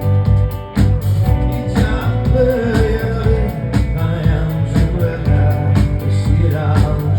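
Live rock band playing a song, with drums keeping a steady beat under bass and guitar and a wavering lead melody over them.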